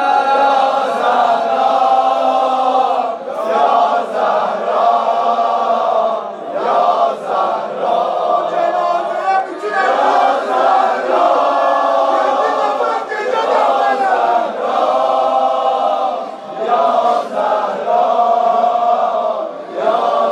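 Many voices chanting a mourning lament together in long, held melodic phrases, with short breaks every few seconds between lines.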